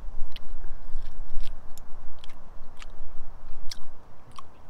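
A man chewing and biting grilled meat off the bone close to the microphone, with irregular sharp clicks of his mouth and teeth.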